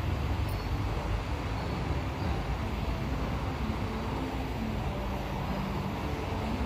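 Hot-air rework gun blowing a steady rush of air onto a circuit board, heating solder joints to lift off a component.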